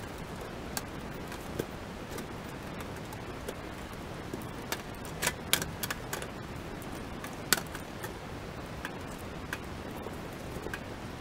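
Sheet-metal top cover of a DX BROADTEC DV2011E7 VHS/DVD combo recorder being handled and fitted back onto the chassis: scattered light clicks and metallic knocks, the loudest about five and a half and seven and a half seconds in, over a steady hiss.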